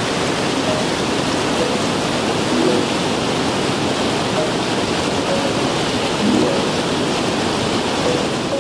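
Steady rush of shallow river water pouring over a concrete weir.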